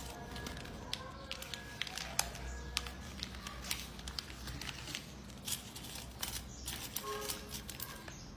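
Sheet of pattern paper rustling and crinkling as it is folded and pressed flat by hand, with many small sharp clicks and ticks.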